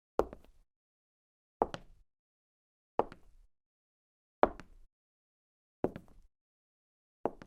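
A woman's slow footsteps: six evenly spaced steps about a second and a half apart, each a sharp hit followed by a quick lighter tap, with dead silence between them.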